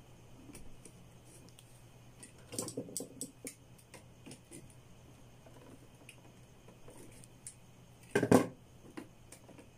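Clicks and light rattles of a plastic wall-switch assembly and its wires being handled, with one louder knock about eight seconds in. A faint low hum runs underneath.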